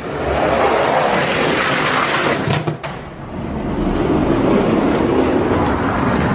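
Two die-cast Hot Wheels monster trucks racing down a long orange plastic Hot Wheels track: a loud, steady rolling rumble of their wheels on the plastic, dipping briefly about three seconds in.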